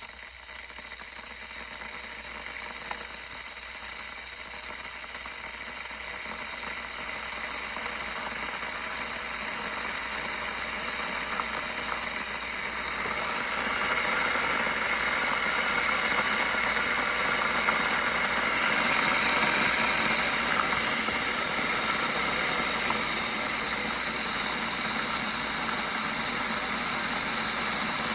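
Hamilton Beach 40930 glass electric kettle heating water: a rushing rumble that grows louder over about the first half and then holds steady as the water nears the boil.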